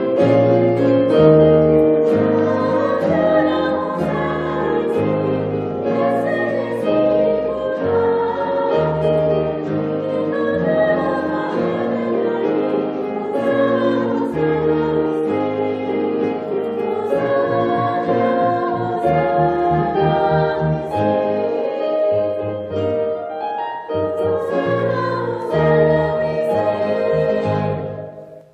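A choir sings a hymn with accompaniment under it. The music cuts off shortly before the end.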